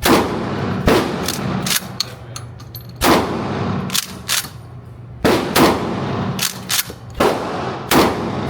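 A string of gunshots at a shooting range: about six loud shots at uneven intervals, with fainter shots in between, each one ringing on briefly. A steady low hum runs underneath.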